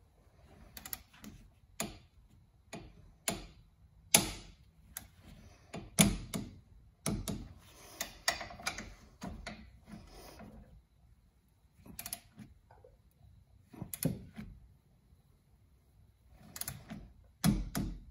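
A socket wrench tightening the nuts of a brake caliper: irregular metal clicks and knocks, with several sharper ones a second or two apart.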